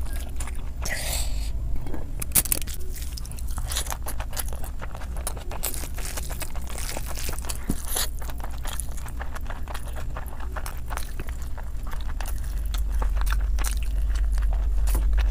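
Chewing mouthfuls of chicken biryani eaten by hand: many small wet mouth clicks and crunches. A steady low hum runs underneath and grows louder near the end.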